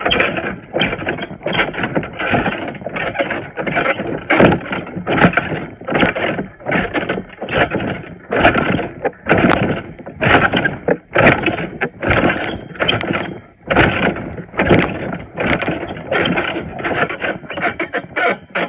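Trampoline springs and mat squeaking and creaking in a steady rhythm with each bounce, about three bounces every two seconds.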